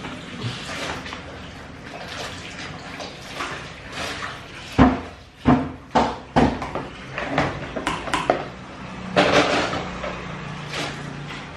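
Water splashing in a bowl at a kitchen sink as meat and dried fish are washed by hand, with four hard knocks about five to six and a half seconds in and a heavier splash near the end.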